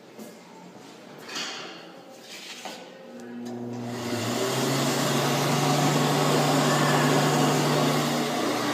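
SpeedFlow electric hand dryer switching on about three seconds in and running: a steady motor hum under a loud rush of air, the hum rising in pitch as the motor spins up. A few light knocks and rustles come before it.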